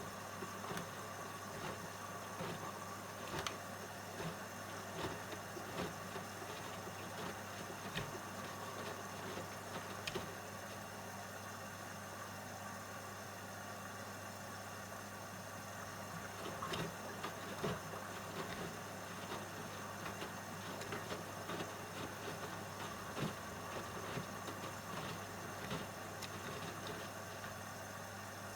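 AEG LS60840L washing machine turning its drum with a load: a steady motor hum under irregular soft knocks as the laundry tumbles, easing off for a few seconds midway before the tumbling picks up again.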